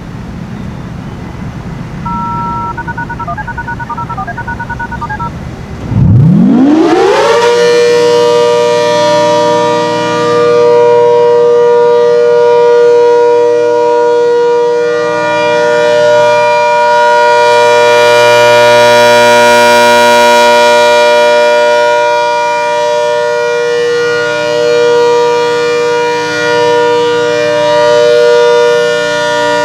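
ACA Hurricane 130 MKII outdoor warning siren winding up about six seconds in: its pitch sweeps up fast and settles on one steady, very loud tone, the steady Alert signal, whose level swells and fades slowly. Before the wind-up comes a short run of beeping tones at two alternating pitches, the siren's activation tones.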